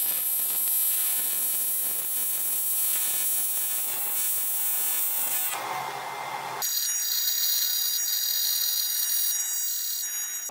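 TIG welding arc on aluminum: a steady electric buzz with a high hiss. The sound shifts briefly a little past halfway, then the buzz returns.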